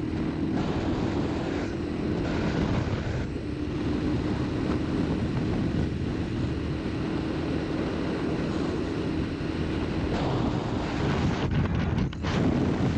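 A 450 sport quad's engine running steadily at road speed, with wind noise on the microphone. Near the end the sound briefly drops and then comes back louder.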